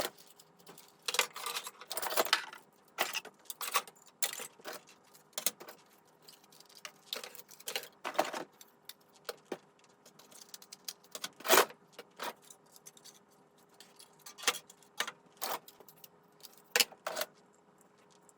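Smoke detectors and other fire alarm devices being handled and sorted out of a box: irregular clicks and clatters of hard plastic, the loudest about eleven and a half seconds in.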